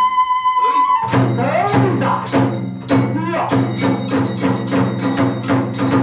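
Iwami kagura hayashi: the drum beats a quick steady rhythm with hand cymbals, about three strokes a second. The fue flute's long held note breaks off about a second in, and the flute comes back in on a higher note near the end.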